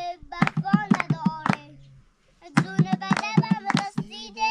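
A voice singing held, wavering notes over quick, rhythmic handclaps, with a short pause about two seconds in.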